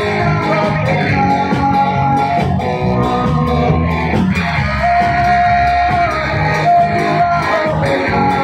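Live rock band playing loud and without a break, electric guitar to the fore, with a singer holding long notes at the microphone.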